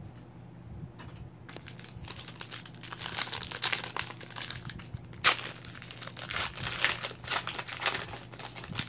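Trading-card pack wrapper being torn open and crinkled by hand: a run of crisp rustles and crackles beginning about a second and a half in, with the sharpest tear about five seconds in.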